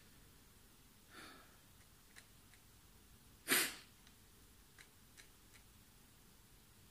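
A man breathing: a soft breath out about a second in, then a short, sharp breath through the nose halfway through, with a few faint clicks in between.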